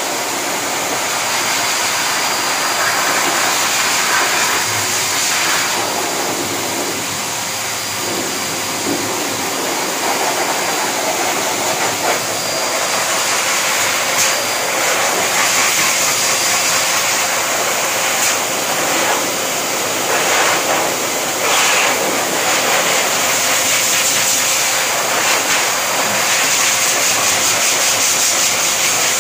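Canister-type pet blow dryer forcing a steady rush of air through its hose onto a puppy's coat, rising and falling a little as the nozzle is moved, with a faint high tone over the airflow.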